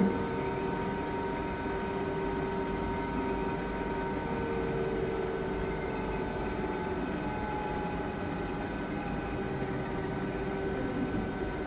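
Spectral MM automatic milling machine running a feed pass: the spindle spins the face mill cutter while the Y-axis slide feeds, a steady mechanical hum with several steady whining tones. The cutter is held just above the workpiece, so no metal is being cut. A brief knock comes right at the start.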